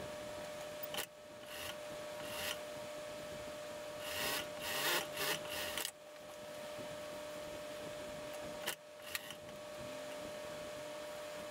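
Suit cloth rustling and rubbing in several short bursts as a jacket sleeve and its lining are handled and slid under the presser foot of an industrial sewing machine, over a steady faint hum with one constant tone.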